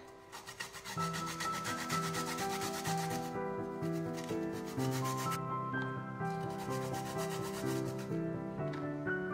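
Garlic cloves grated by hand on a fine metal grater: a fast, even rasping as each clove is rubbed back and forth over the teeth, with two short pauses.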